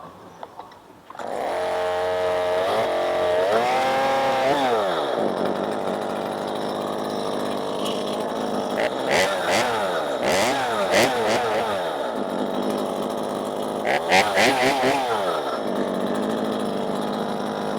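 Stihl MS 182 two-stroke chainsaw engine running, coming in about a second in, idling and then revved up and let back down several times. It runs cleanly now that its flooded engine has been cleared.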